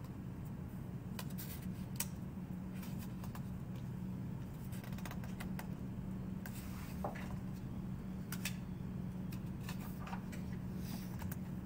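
Room background: a steady low hum with scattered small clicks and taps, about a dozen spread irregularly through it.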